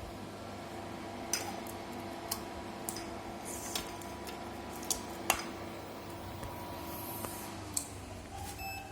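Scattered light clicks and taps, like small metal parts or tools being handled, over a steady electrical hum with faint steady tones.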